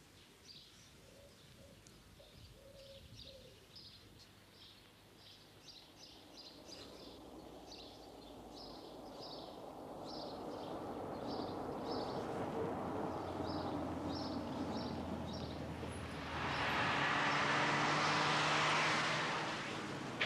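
A bird chirping over and over while a car approaches, its engine and tyre noise growing steadily louder. About sixteen seconds in the noise rises sharply as the car draws up close.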